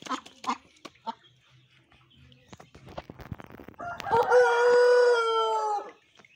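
A rooster crows once, a single call of about two seconds starting around four seconds in; it is the loudest sound. Before it there are scattered short clicks and knocks.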